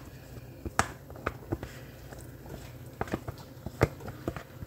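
Irregular clicks and knocks of a kitchen utensil against a pot and containers while chicken is being added to a pasta dish, over a steady low hum.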